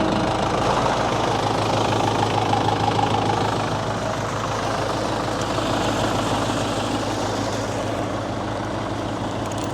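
An engine running steadily with an even hum, easing slightly a few seconds in.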